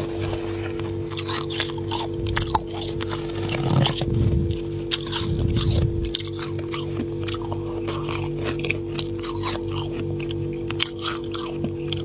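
Freezer frost being bitten and chewed, a dense run of crisp, sharp crunches with two heavier chewing crunches around the middle.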